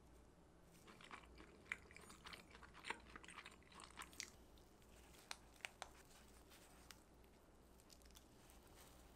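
Faint crisp crackling and crunching of a baked panettone's crust: a dense run of crackles for about three seconds, then a few separate sharp cracks.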